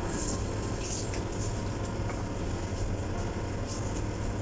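Steady low machine hum of kitchen equipment, with a few faint soft rustles.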